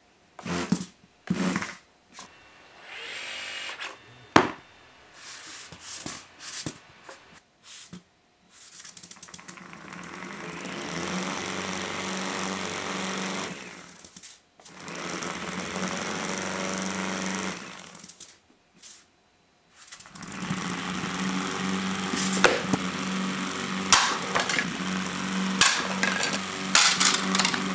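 Small high-speed robot's brushless drive motors and cast rubber tires as it darts about in short bursts, then spins in place for several seconds at a time with a steady hum and tire scrub. The tires are spinning out on soft workout mats even with the current limit turned down. Sharp knocks come in the last few seconds.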